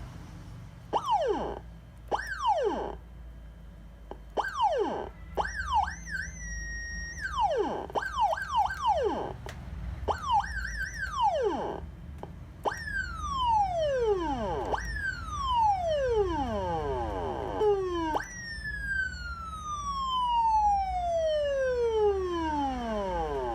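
Electronic police-style motorcycle siren sounding a run of short rising-and-falling whoops, some in quick pairs, with one tone briefly held high. After that come longer wails that start high and fall away, the last one drawn out over about five seconds.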